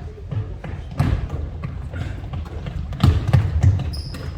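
Thuds of basketballs and players' feet on a gym court during a game, loudest about three seconds in, with a few short high squeaks near the end.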